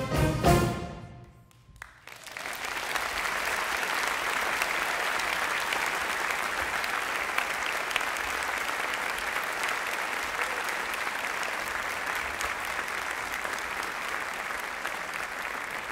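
A school stage band's final chord, with saxophones to the fore, cuts off about a second in; after a short pause an audience breaks into steady applause that continues to the end.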